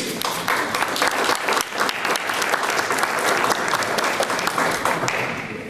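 Audience applauding, a dense run of clapping that fades out near the end.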